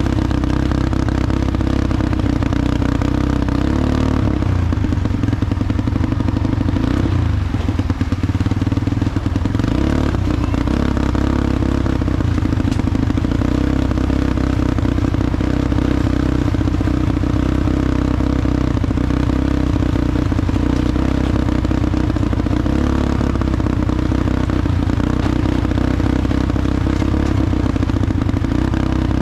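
ATV engine running at a steady pace while riding, with the machine clattering over the ground.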